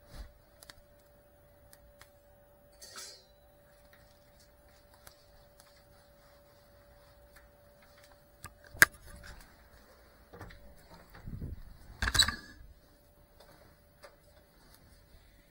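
Quiet room tone with a faint steady hum, broken by a sharp click about nine seconds in and a short cluster of knocks and rustling around twelve seconds.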